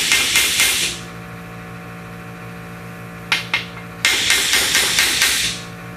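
An air hose's metal connector end banged repeatedly against a workbench to drive a crimp ring up onto the hose. The knocks come about five a second in two bursts, one at the start and another about four seconds in, with two single knocks just before the second. A steady low hum runs underneath.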